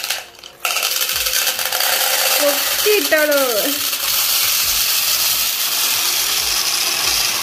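Small candy-coated chocolates pouring from a plastic bag into a plastic tumbler: a continuous dense rattle of many little pieces hitting the plastic and each other, starting about half a second in.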